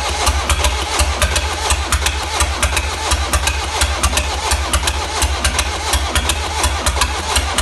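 1.6 HDi diesel engine running just after starting, with sharp ticking several times a second over its steady beat. The mechanic puts the noise down to either a timing chain out of time, faulty tappets, or bent valves.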